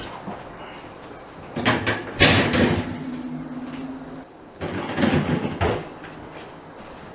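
Plastic shelves and bins being slid out of a side-by-side fridge freezer and handled, rattling and knocking in two bursts, about two seconds in and again about five seconds in. A low steady hum sounds briefly between them.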